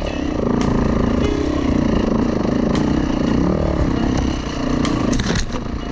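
Dirt bike engine running under load, its revs rising and falling again and again, with frequent sharp knocks and clatter as the bike jolts over the rough trail.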